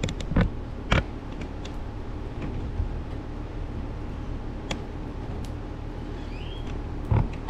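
Electric rotisserie spit turning a whole pig over charcoal: a steady low hum with a few scattered creaks and knocks as the spit turns. A bird chirps briefly near the end.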